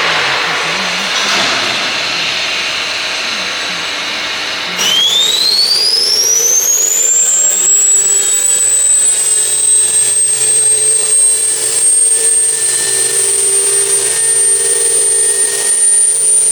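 Stone CNC machining center's spindle spinning up: a high whine that starts suddenly about five seconds in, rises in pitch for two to three seconds, then holds steady. Before it there is a steady hiss.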